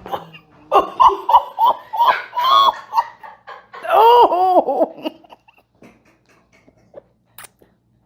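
A chiropractic patient laughing in quick rhythmic bursts, then crying out a long 'oh!' that rises and falls in pitch, as the adjustment cracks their joints. A few short sharp clicks come through under and after the voice.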